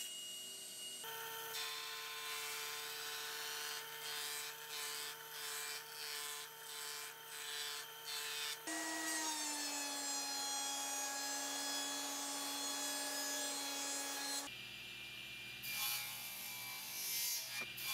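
Woodworking machines at work in three short takes: a table saw with a 24-tooth rip blade cutting hard maple, then a jointer running as a maple board is pushed across it, then the table saw again for a crosscut. Each take has a steady motor hum with cutting noise over it.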